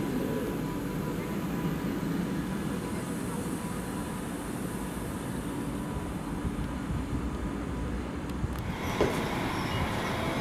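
Electric trains running on the tracks: a steady low rumble with faint steady tones above it. About 8.6 s in the sound changes abruptly to station-platform ambience as a class 422 S-Bahn electric multiple unit pulls in.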